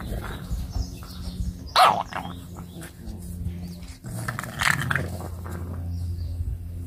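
English bulldog puppies play-fighting and growling, with a sharp bark about two seconds in and a second burst of barking near five seconds.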